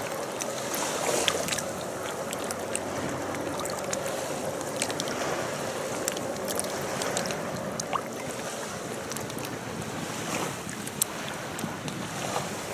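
Sea water lapping and splashing against a rocky shore, with wind on the microphone: a steady wash of noise dotted with many small ticks and splashes.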